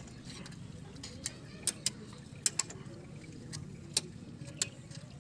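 Irregular sharp clicks and light taps, about a dozen, from hands handling the plastic wiring connector and fuel-line fittings on a JCB diesel fuel filter head, over a low steady hum.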